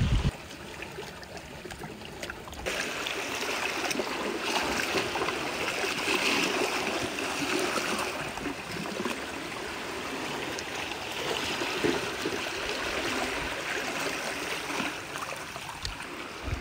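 Water trickling and splashing steadily, getting louder a few seconds in.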